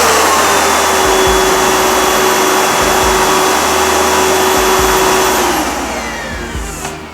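FIRST FA-5505 vacuum cleaner running with a loud, steady motor whine. About five and a half seconds in it is switched off and the whine falls away as the motor spins down.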